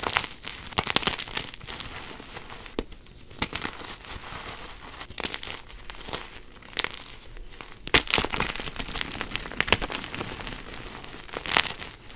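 Bare hands crumbling and squeezing plain white gym chalk (magnesium carbonate) chunks and powder: a constant irregular soft crunching and crackling as the pieces break apart, with sharper cracks about a second in, near eight seconds and near the end.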